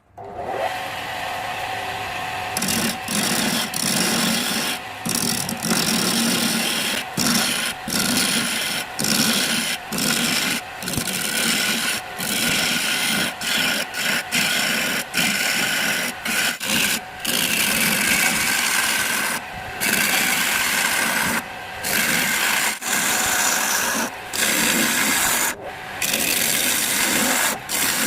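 Wood turning on a lathe with a tool or abrasive rubbing against the spinning workpiece: a steady scraping rasp that grows louder a couple of seconds in and breaks off briefly every second or two as the contact is lifted.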